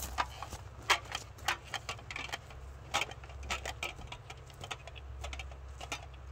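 Boots crunching and scuffing on dry forest duff and debris, with metal gear on a faller's belt jangling: irregular crunches and clicks that grow fainter as the walker moves away, over a faint steady low hum.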